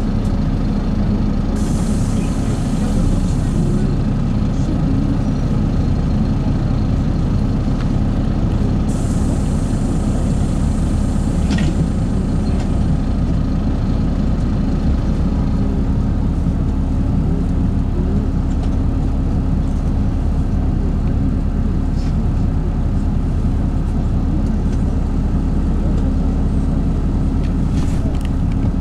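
LiAZ-5292 low-floor city bus heard from on board while moving: a steady engine and drivetrain hum. Two short hisses of compressed air come about two seconds in and again about nine seconds in.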